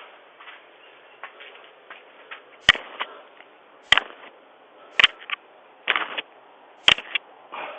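A dog knocking at a front door: single sharp knocks about a second apart, starting about two and a half seconds in, with a few fainter taps between them. They are heard through a doorbell camera's microphone over its steady hiss.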